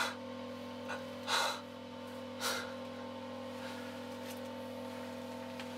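A man's breathing: two short, sharp breaths about a second apart, over a steady low hum.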